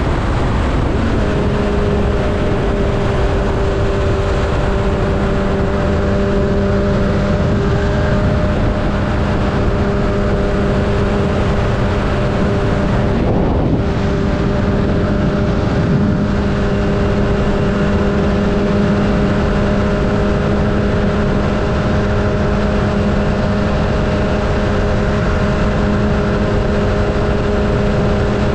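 Sport motorcycle riding at a steady freeway speed: the engine holds an even hum under a heavy rush of wind and road noise.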